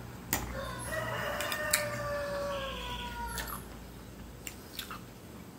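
A rooster crowing once: one long call of about three seconds that sinks slightly in pitch at the end. Under it, a few sharp clicks of a knife and fork on a plate.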